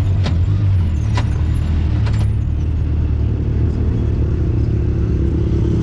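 Side-by-side UTV engine running steadily while cruising along the road, with three light clicks in the first couple of seconds.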